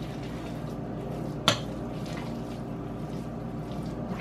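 Metal fork stirring a thick, wet, batter-like grain-and-lentil burger mixture in a large ceramic bowl, with one sharp clink of the fork against the bowl about a second and a half in.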